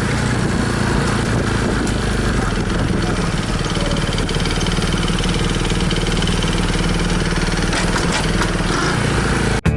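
Customized Honda Super Cub's single-cylinder four-stroke engine running steadily, cutting off abruptly near the end.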